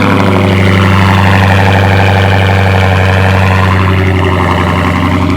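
Dodge Hellcat's supercharged V8 at a cold-start idle, loud and steady through an aftermarket exhaust with its valves open.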